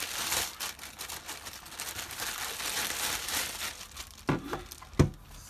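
Clear plastic bag crinkling and rustling as a guitar pedal is pulled out of it by hand, then two thumps a little after four and five seconds in as the pedal in its foam packing is handled on the table, the second the louder.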